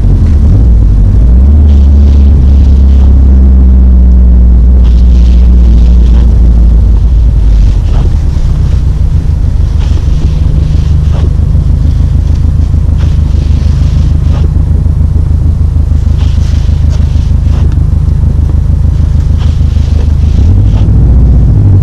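2017 Subaru STI's turbocharged flat-four engine running as the car is driven, a loud, steady low drone whose pitch steps to a new level a few times as engine speed changes. Faint clicks and patches of hiss come and go over it.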